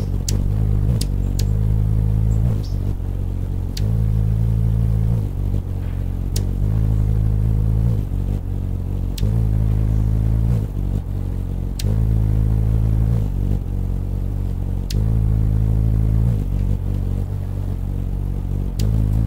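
Wingbeat hum of a male Anna's hummingbird hovering at a feeder: a low buzzing hum whose pitch switches back and forth between about 50 and 60 wingbeats a second, every second and a half or so.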